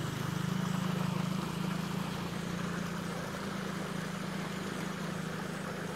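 A small engine running steadily at an even idle, a low, unchanging hum.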